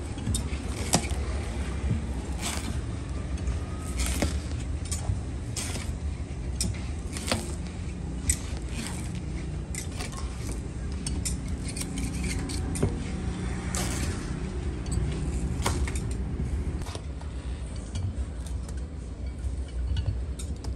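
Irregular sharp metallic clinks and taps, a few every second or two, over a steady low rumble.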